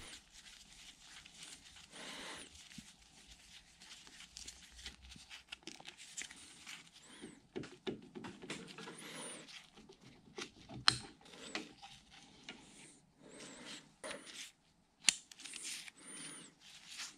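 Faint hand-tool work on a Bridgeport mill's quill housing: a T-handle hex key backing out socket head cap screws and the feed trip bracket being worked loose and lifted off. Gloved hands rustle throughout, with scattered metal clicks, the sharpest about eleven and fifteen seconds in.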